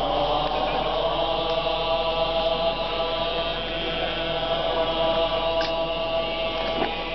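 Buddhist monks chanting together in long, held tones.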